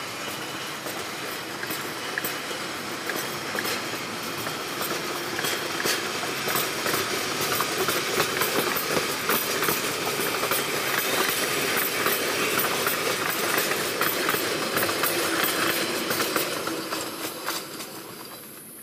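Pakistan Railways passenger train coaches rolling past at close range: a steady rumble with many sharp clicks of wheels over rail joints, fading away as the last coach moves off near the end.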